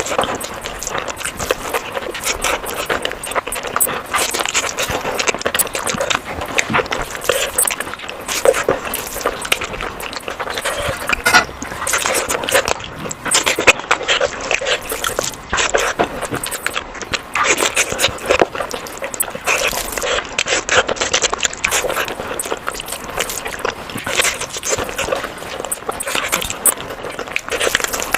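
Close-miked eating sounds: continuous wet chewing with many small clicks and squelches of a mouth working through food.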